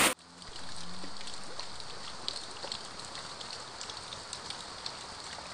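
Light rain, with scattered drops ticking irregularly as they splash into rainwater collected in a half coconut shell, over a soft steady patter.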